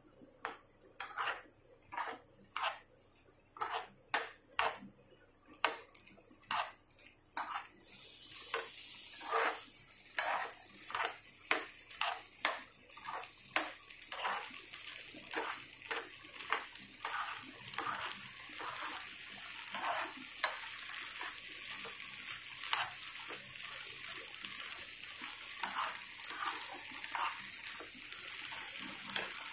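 A spatula scraping and stirring black chickpeas in a frying pan, in repeated strokes about two a second. About a quarter of the way in, a steady sizzle joins the strokes and keeps on as the masala water cooks off.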